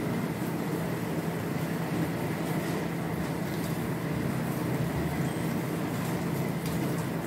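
Steady low hum, like a fan or motor running, with the soft squelching of besan batter being beaten by hand in a steel bowl.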